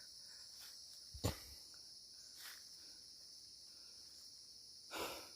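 Steady high-pitched chorus of forest insects, with a sharp snap about a second in and a short rustle near the end.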